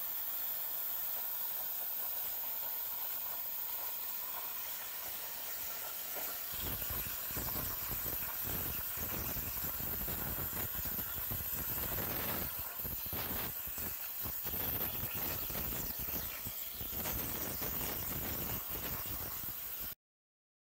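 Titanium Cut 45 plasma cutter's arc hissing steadily as the CNC torch cuts steel plate; about six seconds in it becomes a fuller, rougher rushing, and it cuts off suddenly near the end.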